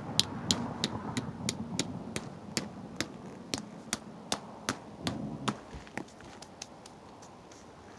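A quick series of sharp knocks, about two to three a second, over rustling, thinning out and fading about six seconds in.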